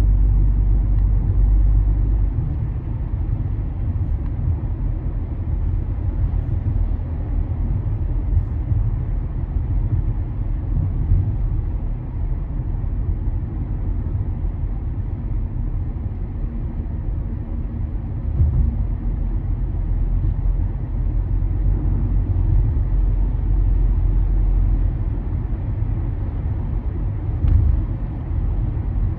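A car driving along a street: a steady low rumble of road and engine noise.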